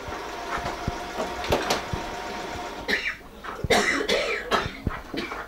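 Electric sewing machine running steadily for a few seconds, stopping a little under three seconds in, followed by a few short loud vocal sounds like coughs.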